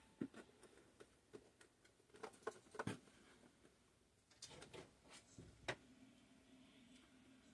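Faint scattered clicks and scratches of fingernails picking at a stuck-on white plastic piece on a mini fridge, which tears in bits rather than peeling off.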